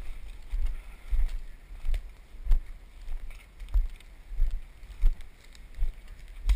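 Footsteps walking through woodland undergrowth at a steady pace of about three steps every two seconds. Each step is a dull thump, with light crackles of leaf litter and twigs.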